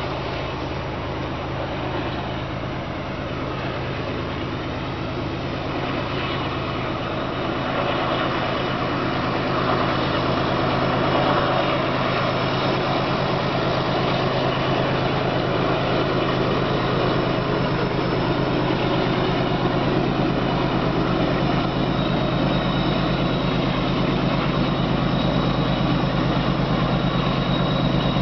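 Distant GE diesel-electric freight locomotives working up a grade, a steady low engine drone that grows slowly louder as the train approaches.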